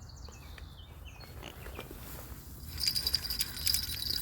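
Spinning reel's line clicker ratcheting rapidly as a fish pulls line off the spool on a bottom rig. The fast, high clicking starts about three seconds in, after faint scattered ticks.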